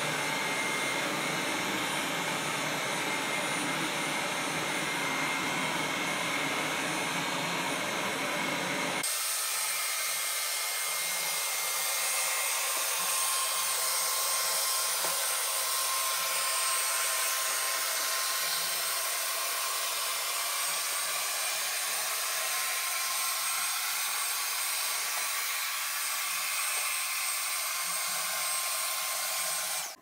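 Wolkinz Cosmo robot vacuum running: a steady rushing noise from its suction motor and brushes, with faint thin whines in it. About nine seconds in, the lower part of the sound drops out abruptly, and the rest carries on unchanged.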